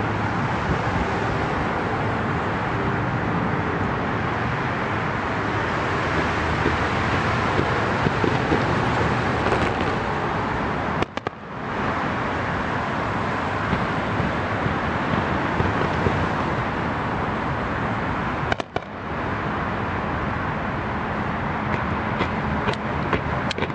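Distant fireworks popping faintly over a steady roar of road traffic. The sound cuts out briefly twice, about eleven seconds in and again near nineteen seconds.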